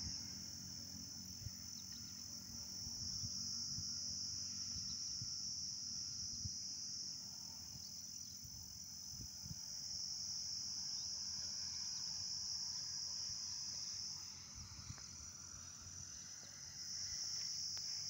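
Insect chorus: a steady high buzzing that fades twice and comes back.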